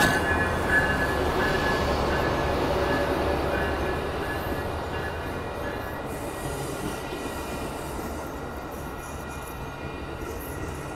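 Amtrak Coast Starlight passenger train passing close by: its baggage car and Superliner double-deck cars rolling over the rails, with a thin steady high squeal from the wheels. The sound slowly gets quieter as the train goes by.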